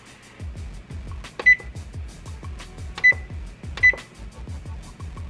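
Oven touch control panel beeping as its keys are pressed to set the oven to preheat at 400 °F: three short, high beeps, about a second and a half in, at three seconds and near four seconds, over background music.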